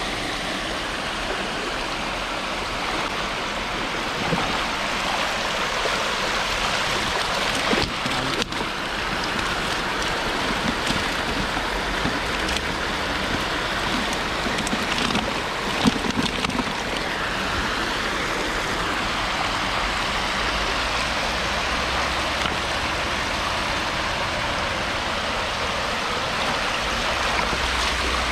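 Water running in a small creek, a steady rush, with two short sharp knocks about eight and sixteen seconds in.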